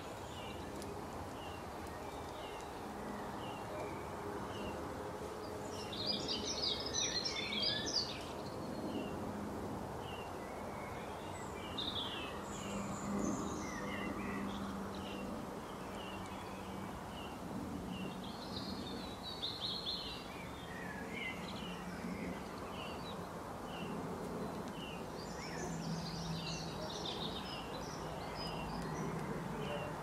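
Songbirds calling and singing: a short chirp repeated about once a second throughout, with a few louder bursts of twittering song, over a steady background hum.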